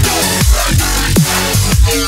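Background electronic music with a heavy kick drum and deep bass, about two beats a second.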